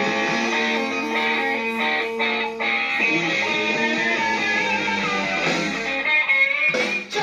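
Rock song with strummed electric guitars, played back from a vinyl record. The music dips briefly near the end.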